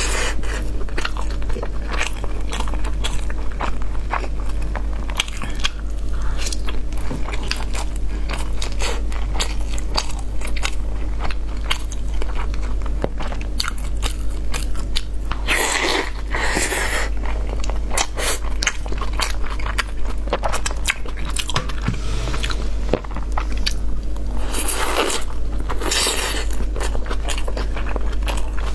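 Close-miked eating: steady biting and chewing of food with many small wet clicks and crunches. Twice there is a louder noisy stretch of about a second.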